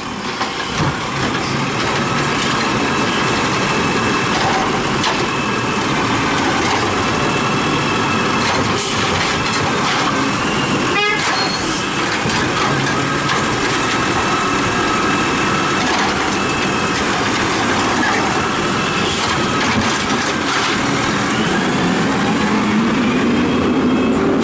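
Diesel automated side-loader garbage truck running under load as its hydraulic arm works a trash cart, with steady whining tones over the engine and a few sharp knocks, the loudest about 11 seconds in. Near the end the truck pulls away and the engine pitch rises.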